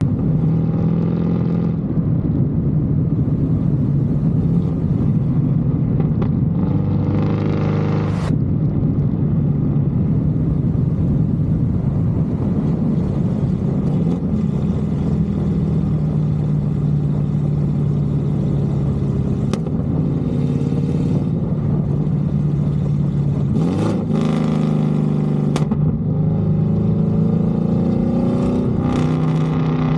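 Chevrolet Camaro SS V8 exhaust running steadily, its note rising and falling with a few blips of the throttle, with a handful of sharp exhaust pops and crackles as the revs come off.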